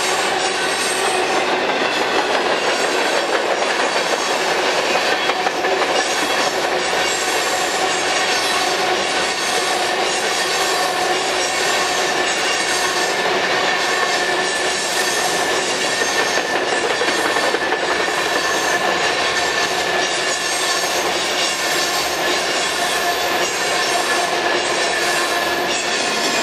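Freight train's covered hopper cars rolling past at close range: steel wheels rumbling and clattering on the rail, with a continuous wheel squeal ringing at several steady pitches.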